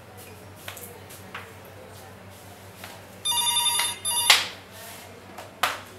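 An electronic telephone ringer sounds briefly: about a second of steady multi-tone ringing with a short break. It is followed by a loud, sharp clatter and another knock about a second later.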